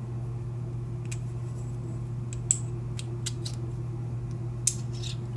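Scattered small metallic clicks and clinks as the pins and core of an American padlock are handled and worked apart, over a steady low hum.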